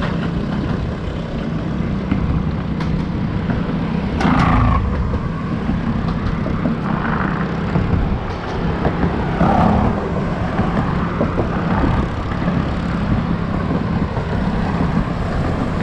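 Wind buffeting the microphone: a steady low rumble with a few louder surges of hiss, about four, seven and nine and a half seconds in.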